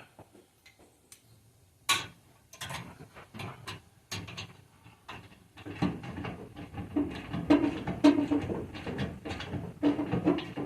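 Hand tools working the nuts and clamps of a muffler: scattered metallic clicks and knocks, then about halfway through a louder, busier stretch of rapid rattling and clicking as the hardware is tightened.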